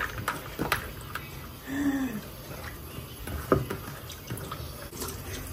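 Soaked wheat grains being scooped by hand from a plastic bowl and dropped into a stainless steel pressure-cooker pot: a wet, watery rustle with scattered light clicks as grains hit the metal.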